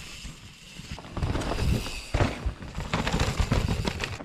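Mountain bike clattering over rough forest trail, with irregular knocks and rattles that grow denser from about two seconds in, over a low, uneven rumble of wind on the microphone.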